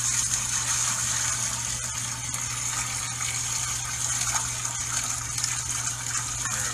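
Liquid pouring steadily from a bottle into a cup.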